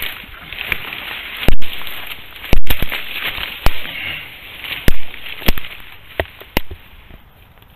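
Dry dwarf-bamboo stems and dead leaves rustling as someone pushes through a sasa thicket on foot, with about seven loud, sharp cracks of stems snapping or striking, the loudest about one and a half and two and a half seconds in.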